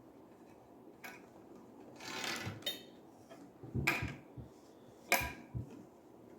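A wrench and metal shower fittings knocking and clinking as a fitting is worked tight by hand, with a brief scraping rustle; the loudest knocks come near the middle and again about a second later.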